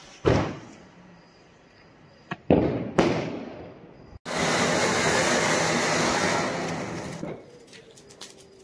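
Diwali firecrackers going off: several sharp bangs in the first three seconds, then a steady hiss for about three seconds, then scattered small crackles near the end.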